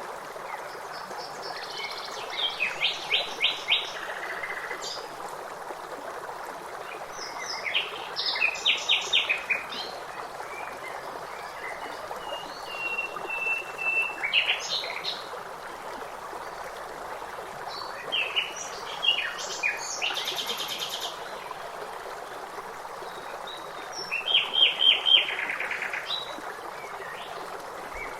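Several songbirds singing short phrases of quick repeated chirps every few seconds, over a steady hiss of running water.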